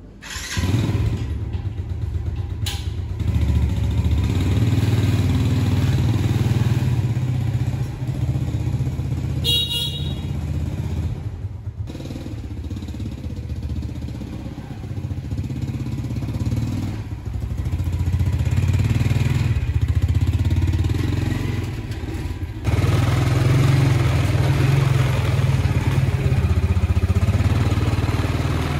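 Small motorbike engine running as the homemade three-wheel cargo vehicle pulls away under load and rides on, its note rising and falling with the throttle. A brief high-pitched tone sounds about ten seconds in.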